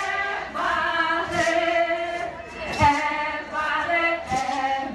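Group of voices singing a chant in long held notes, with a short percussive stroke about every one and a half seconds.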